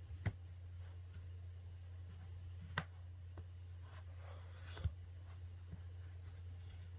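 A pry tool clicking against the plastic frame and clip tabs of a Samsung Galaxy Tab A 10.1 (2016) as the back is worked open: three sharp clicks about two seconds apart and a few fainter ticks, over a steady low hum.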